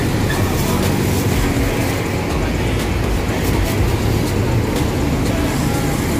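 Steady rumble of road traffic passing close by, with light crinkling of plastic bags being handled.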